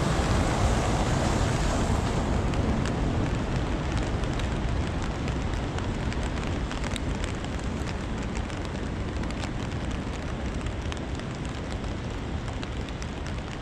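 Steady rushing of falling stream water under rain, with light ticks of raindrops, slowly growing quieter.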